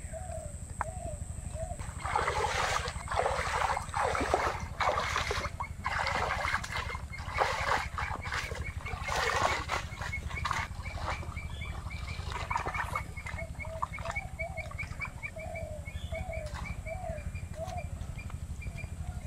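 Water splashing and sloshing in irregular bursts as cut fish pieces are rinsed in a plastic basket in river shallows. A bird's short repeated calls run under it, clearest before the splashing starts and again in the last few seconds.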